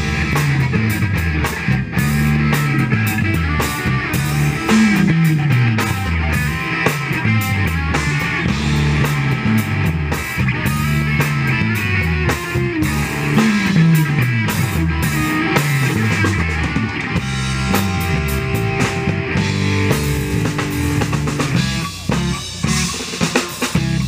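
Live rock-funk band playing an instrumental passage: drum kit, electric guitar and a busy bass line that slides up and down in pitch. The band thins out near the end.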